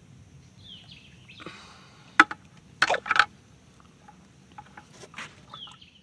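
Outdoor pond-side ambience with birds chirping: short falling chirps about a second in and again near the end. A few sharp clicks or knocks about two to three seconds in are the loudest sounds.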